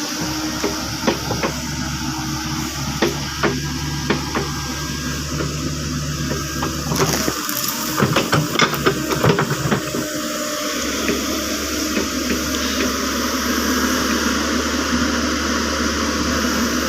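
Caterpillar 307.5 mini excavator's diesel engine running while the machine digs out a ditch in wet peat. Water and mud slosh, and a cluster of sharp knocks comes about eight seconds in, where the engine's steady note changes.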